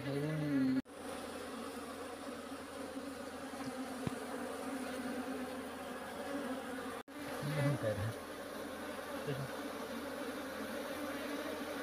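A large mass of honeybees buzzing around an opened hive box, a steady drone from many wings. The drone drops out briefly twice, about a second in and about seven seconds in.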